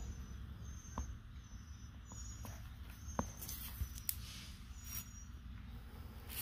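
Faint handling noise while a large grasshopper is picked up and held: a few light clicks, the sharpest about three seconds in, and brief scratchy rustles over a low rumble.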